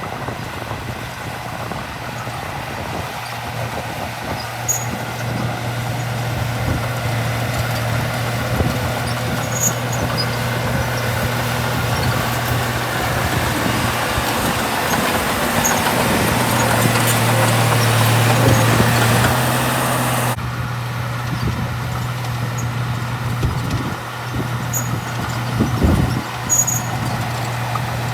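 Komatsu D31P small crawler bulldozer's diesel engine running steadily while working, with short high squeaks scattered through. The engine sound builds, then drops suddenly about two-thirds of the way through.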